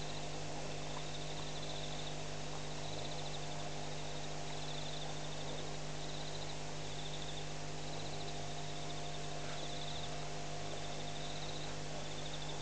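A cricket chirping in short, high trills repeated about every second, over a steady hiss and electrical hum from the outdoor webcam microphone.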